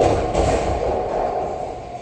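Bowling alley din of balls and pins, with a heavy thud at the start and a second one about a third of a second later, then fading.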